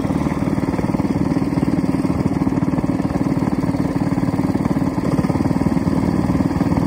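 Small single-cylinder minibike engine idling steadily close by, with a rapid, even putter and no revving.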